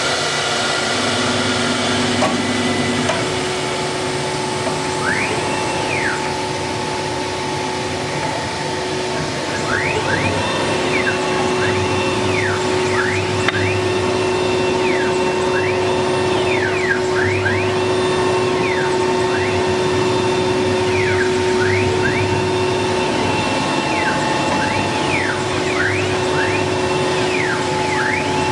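A 1325 CNC wood router with a 4.5 kW spindle running, the spindle holding a steady whine. Over it the axis drive motors repeatedly whine up in pitch, hold, then drop as the gantry speeds up and slows down on its moves, many times from about a third of the way in.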